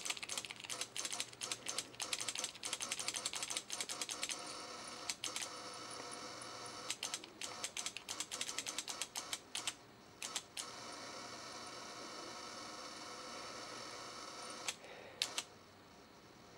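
Homemade vacuum-tube Tesla coil arcing into potting soil in a jar: rapid crackling snaps of the discharge over a steady electrical hum. The crackling is thick for the first few seconds, thins out, and stops about two-thirds of the way in, leaving the hum, with a few last snaps shortly before the end.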